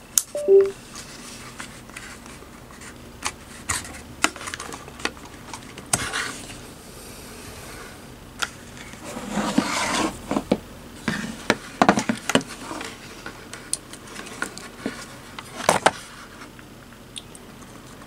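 Handling noise from swapping 3.5-inch IDE hard drives on a USB-to-IDE/SATA adapter: scattered clicks, knocks and scrapes of metal drive cases and plastic connectors against a wooden desk, thickest around the middle.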